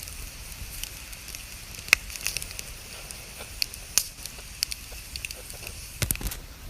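Campfire crackling, with scattered small crackles and two sharp pops, about two and four seconds in, then a quick cluster of crackles near the end.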